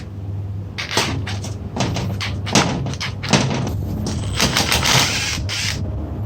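Hand work on metal parts: a string of clanks, clicks and knocks with short scraping rasps, busiest in the second half, over a steady low hum.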